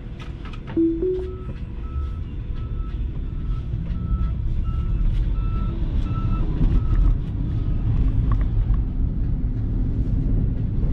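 Tyre and road rumble inside a moving Tesla Model 3's cabin, with a construction vehicle's reversing alarm beeping about twice a second for several seconds before it stops. A short, louder two-note rising tone sounds about a second in.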